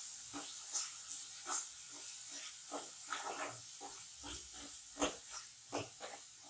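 A spatula stirring and scraping an onion-tomato masala around a non-stick kadhai, in quick repeated strokes over a steady sizzle, as the masala fries until the tomatoes soften.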